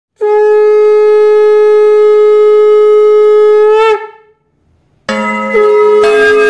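A conch shell (shankha) blown in one long, steady note of about four seconds that wavers and cuts off; after a second's silence, music starts with a long held note.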